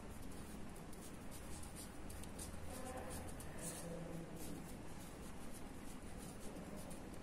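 Pen writing on paper: faint, quick, irregular scratching strokes as words are written out.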